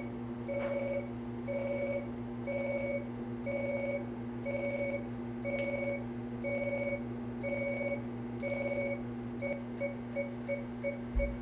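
GenesisPlus laser's emission tone while it fires at a toenail: an electronic beep in two pitches, about half a second long and repeating about once a second, turning to short quick beeps about three a second near the end. A steady electrical hum runs underneath.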